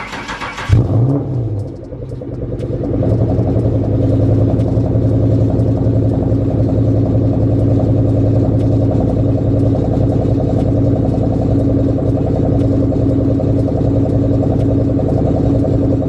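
Ford 4.6 V8 cold-starting: it catches about a second in with a loud burst and a brief rev, then settles into a steady rough idle with a cylinder misfire.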